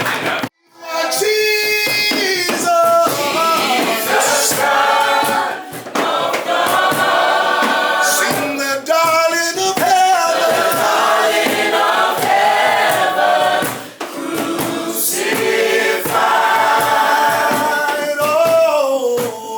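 Several voices singing together, choir-style, broken by brief gaps about half a second in and again near the middle.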